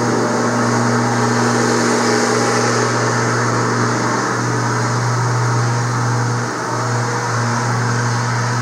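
Skid steer's diesel engine running steadily at idle, with a brief dip in its note about six and a half seconds in.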